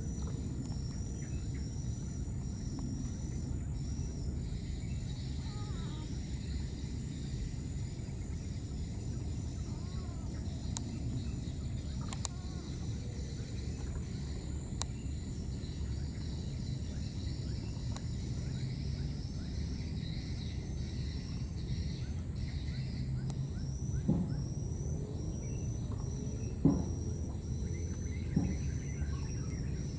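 Outdoor field ambience: a steady low rumble with a high chirping call repeating about twice a second, heard at the start and again in the last few seconds. There are a few short, sharp knocks near the end.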